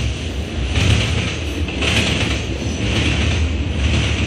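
Freight cars of a long mixed-freight train rolling past at speed: a steady rumble and rattle of wheels on the rails. The noise swells about once a second as the wheel sets go by.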